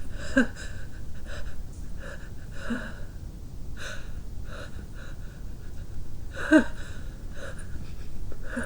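A person's repeated gasping in-breaths as a sneeze builds, while they try to hold it back. Two short, sharp stifled sneezes stand out, one about half a second in and a louder one about six and a half seconds in.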